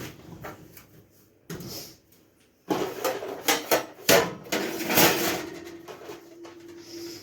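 A serving utensil knocking and scraping against a pot and plate as food is dished out: a few scattered knocks at first, then a busier run of clatter from about midway.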